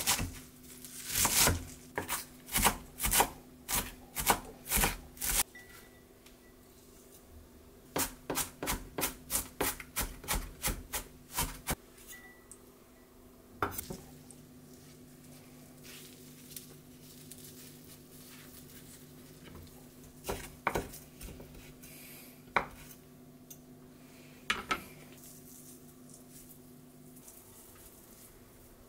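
Kitchen knife chopping on a wooden cutting board, mincing cabbage and shiso leaves: a run of strokes about two a second at the start, then a quicker run of about four strokes a second, followed later by a few separate knocks. A faint steady low hum lies underneath.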